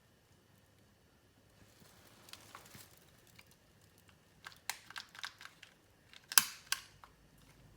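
Light clicks and taps from small objects being handled by hand: a quick run of clicks about halfway through, then two sharper clicks, the first the loudest.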